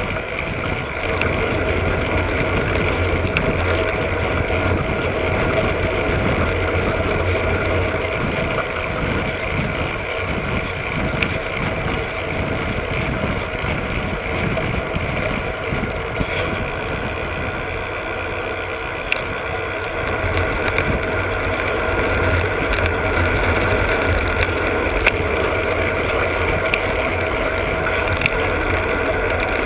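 Koga Kimera road bicycle rolling along a paved road, heard from a GoPro under the saddle: steady tyre and road noise with a low rumble, and a few sharp clicks from bumps.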